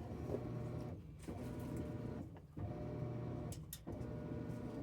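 Washing machine running through a wash load: its motor hum comes in repeated strokes about a second long with brief pauses between them, as the drum or agitator reverses. A couple of light clicks near the end.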